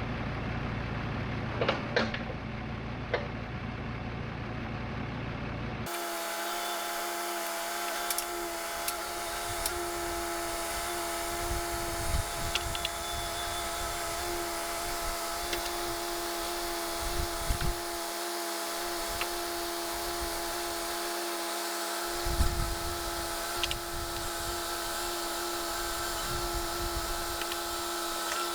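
Low rumble, then after a cut about six seconds in a mini excavator running with a steady whine, with a few low thuds.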